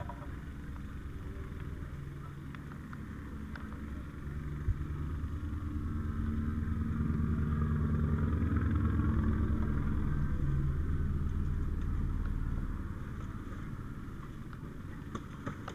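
A motor engine running with a low hum, growing louder over several seconds and then easing off, with one sharp knock about five seconds in.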